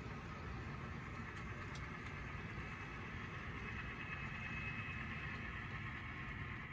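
HO scale model freight train running past, two model diesel locomotives pulling freight cars on the layout track: a faint, steady running noise with a thin high whine that grows stronger in the second half.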